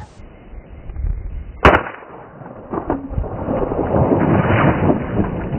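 A single rifle shot about one and a half seconds in, with a fainter crack about a second later, followed by a steady rushing noise.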